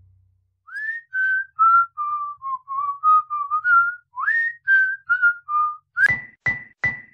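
A person whistling a tune through the lips: a wandering melody of about a dozen notes, some sliding up into pitch. It ends with three short, sharp notes on one high pitch.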